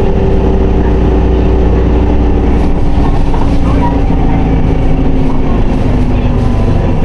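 Diesel engine of an Isuzu Erga city bus (2PG-LV290N3) heard from inside the cabin, running with the gearbox held in fourth, a steady low drone whose pitch slowly falls.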